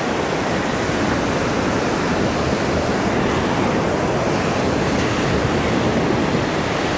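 Ocean surf breaking and washing up the sand close by: a steady rush of waves.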